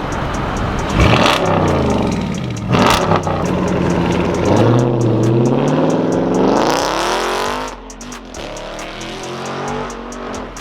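Car engine with the muffler deleted, revved hard: two sharp blips in the first three seconds, then a long rev that sweeps down and climbs to a peak before falling back to a lower running note. It is really loud through the open exhaust.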